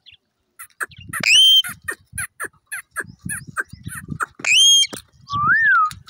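Indian ringneck parakeet calling: a rapid run of short, sharp chirps broken by two loud screeching calls, then a whistled note that rises and falls near the end.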